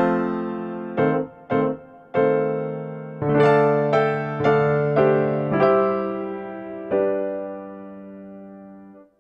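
Background piano music: notes and chords struck one after another and left to ring, the last chord dying away near the end.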